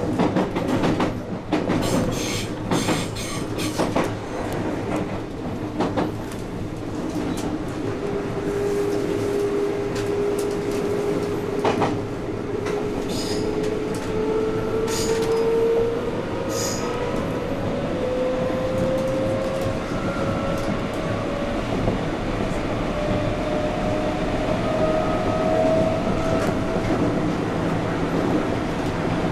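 JR West 221 series electric train running, with rail-joint and pointwork clicks and clatter in the first few seconds. It is followed by a motor and gear whine that rises steadily in pitch as the train picks up speed.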